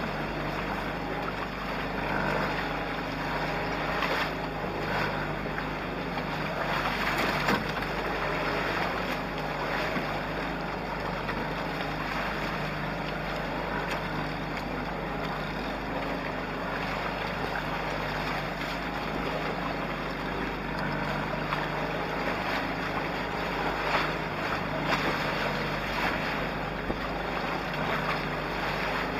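Steady rush of wind on the microphone and water washing along the hulls of a small trimaran sailing through choppy waves.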